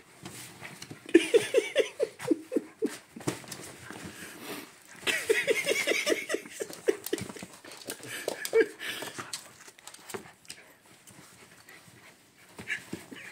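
Two dogs play-wrestling: two bouts of quick, rhythmic play-growling, each lasting about two seconds at some five pulses a second, with scuffling on the playpen's fabric and bedding in between.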